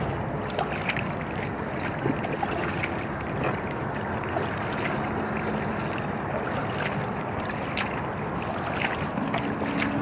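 Water lapping and small splashes around an inflatable kayak moving on a river, over a steady wash of wind on the microphone and a low hum of highway traffic.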